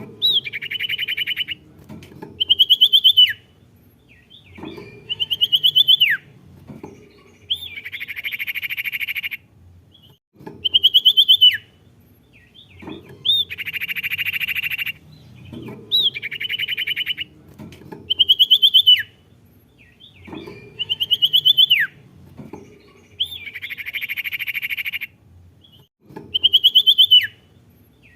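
A songbird singing in a repeating cycle: buzzy, rattling trills about a second and a half long alternate with short, sharp whistled phrases that rise and then drop steeply, with brief pauses between phrases.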